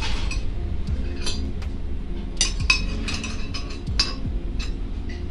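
Metal spoons and forks clinking against ceramic plates and a serving bowl as food is served and eaten, with a few scattered clinks and a closer run of them about halfway through.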